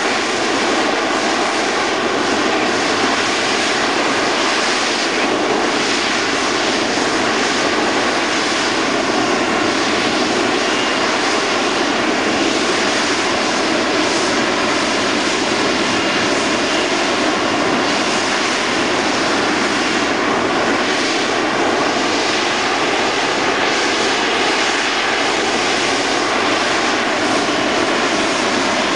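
Harrier GR9A jump jet's Rolls-Royce Pegasus vectored-thrust turbofan running at high power in the hover, a steady, loud rushing jet noise with a faint whine through it.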